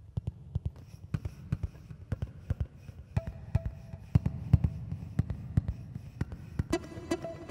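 Intro music: a quick run of sharp percussive hits over a low rumble, with a plucked-string melody coming in near the end.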